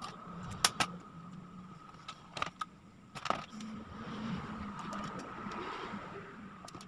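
Sharp clicks and light clinks of pliers and wires being handled against the metal amplifier chassis, a handful of separate taps over a steady background hum.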